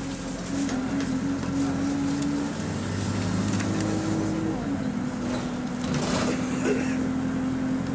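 Alexander Dennis Enviro200 bus's diesel engine heard from inside the passenger saloon, humming steadily at a high idle while the bus creeps in traffic, its note stepping up and down a couple of times. Light rattles from the bus interior and a short rushing noise about six seconds in.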